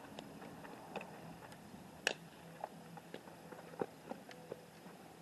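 Softball fielding practice: a few sharp knocks and clicks of the ball being hit and fielded, the loudest about two seconds in, over faint outdoor hiss.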